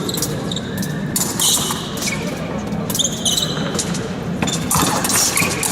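Épée fencers' feet thudding on the piste and short metallic clinks of blades meeting, over the steady murmur of a large fencing hall.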